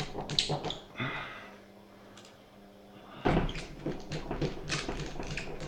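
Door hardware being handled while a latch and handles are fitted: a run of small clicks and knocks and a brief scrape about a second in. About three seconds in comes a sudden louder knock, then more rattling clicks.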